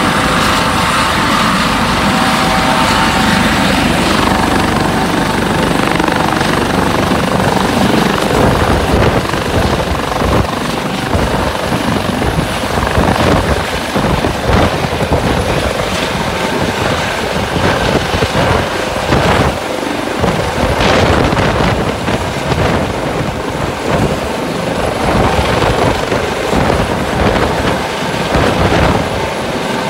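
Eurocopter Dauphin-type twin-turbine helicopter taking off: at first a steady turbine whine with the rotor turning on the ground, which fades after a few seconds; then the rotor's rhythmic blade chop builds as it lifts into a hover and climbs overhead.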